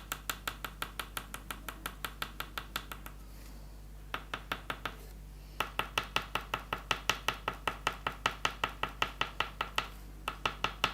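Oil pastel stick tapped quickly and evenly on paper to make dots, about five taps a second, stopping briefly a few times.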